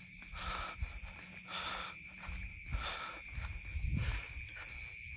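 Night insects trilling steadily on one high pitch, with soft hissy sounds recurring about once a second and a low rumble underneath.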